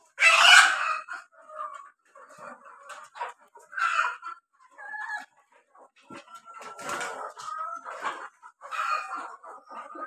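A flock of Kadaknath chickens clucking and calling in short, overlapping bursts, loudest just after the start.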